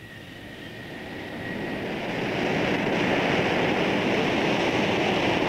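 F-111's twin turbofan jet engines rushing as the aircraft rolls along the runway, swelling over about three seconds and then holding steady. A thin high whine fades out in the first two seconds.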